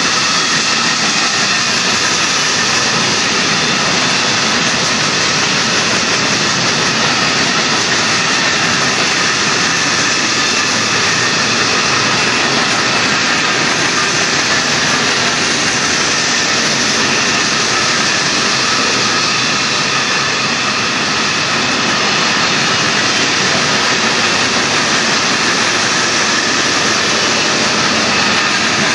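Empty hopper cars of a Union Pacific freight train rolling past on the rails: a loud, steady rush and rumble of steel wheels on track.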